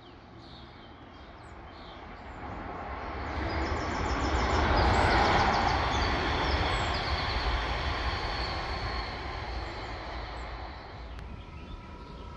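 Electric passenger train passing on the main line: its rushing noise swells to its loudest about five seconds in, then fades away as the train recedes.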